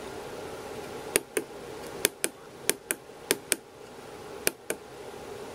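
Tactile push-buttons on a DSO138 oscilloscope kit board clicking as they are pressed and released, stepping the time base: about nine sharp clicks, mostly in close pairs a fifth of a second apart.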